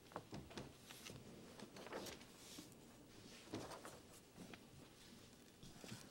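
Near silence: room tone with a few faint scattered taps and rustles.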